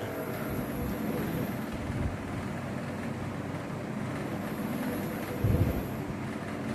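Electronic upper-arm blood pressure monitor mid-measurement: its inflation pump stops just after the start, and the cuff then deflates gradually through the release valve with a steady low noise while the pressure falls. A brief thump about five and a half seconds in.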